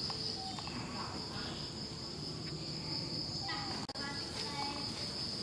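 Insects droning steadily on one high note, with short faint chirping calls over it.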